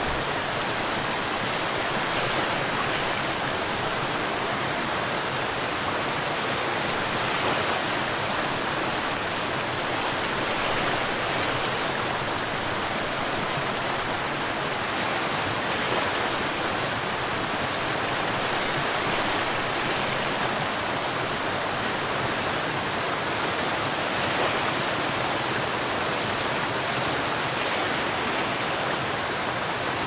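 Waterfall rushing, a steady unbroken hiss of falling water.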